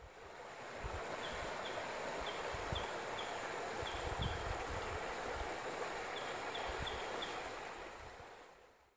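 Creek water running over rocks, fading in at the start and out near the end, with a bird's short high chirps in two quick runs.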